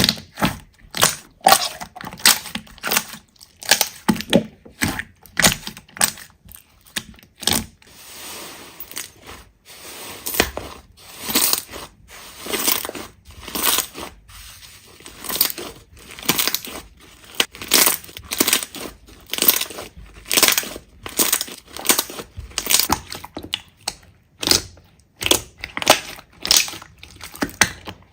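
Slime being squeezed and pressed by hand, giving a run of crackling, crunching sounds, a few every second.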